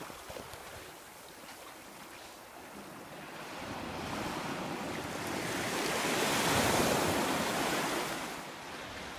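Small sea waves breaking and washing up a sandy shore, the surf hiss swelling to a peak about two-thirds of the way through, then fading as the wash draws back.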